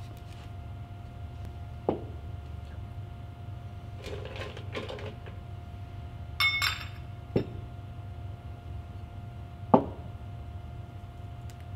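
Bar tools and glassware being handled and set down on a table while a cocktail is made: a few separate knocks, the loudest near the end, some rustling, and a short ringing clink about six and a half seconds in, over a steady low hum.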